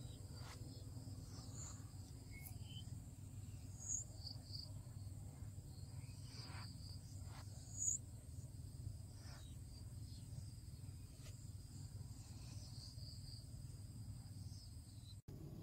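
Faint steady insect chirring, high and continuous, over a low rumble. Two short, louder high chirps stand out about four and eight seconds in, and the sound cuts out for an instant near the end.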